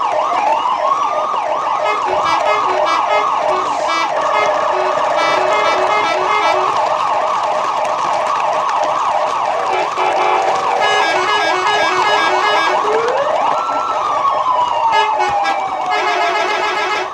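Electronic emergency siren in a fast yelp, its pitch rising and falling several times a second, with more than one siren pattern overlapping. Near the end a slower wail rises and then falls away.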